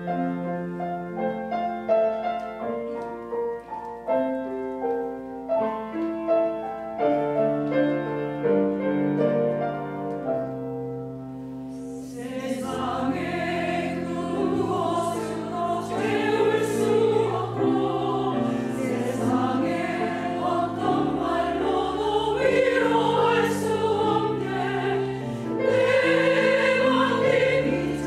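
Piano introduction of separate struck notes, then a mixed church choir comes in about twelve seconds in, singing a hymn in Korean over the piano.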